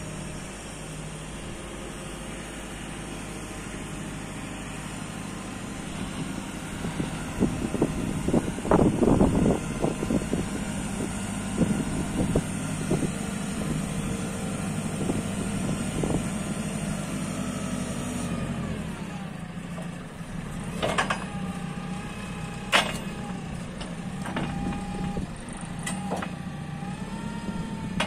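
JCB 540-140 telehandler's diesel engine running while its telescopic boom is retracted and lowered under hydraulic power. A run of clunks and rattles from the boom comes about a third of the way in. Later a whine drops in pitch, followed by a few sharp clicks.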